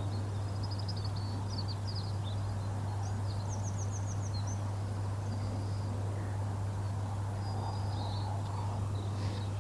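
Small birds chirping, with one quick trill of about seven repeated notes, over a steady low hum.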